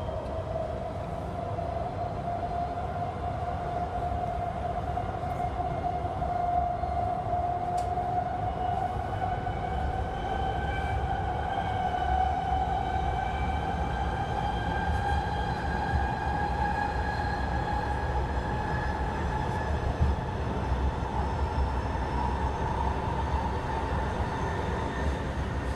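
Subway train heard from inside the car: a steady low rumble of the train running, with the whine of its electric traction motors rising slowly in pitch.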